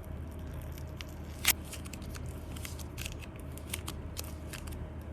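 Soft colour clay being worked by hand: a run of small crackling clicks, with one sharp, much louder click about a second and a half in.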